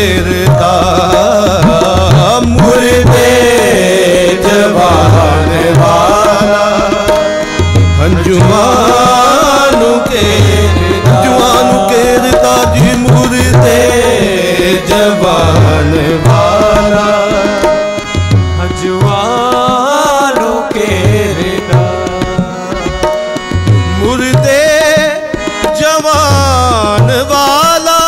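Live Christian qawwali: a lead voice sings long, wavering melodic lines over harmonium. Tabla plays a steady rhythm with deep bass strokes, and the chorus keeps time with hand claps.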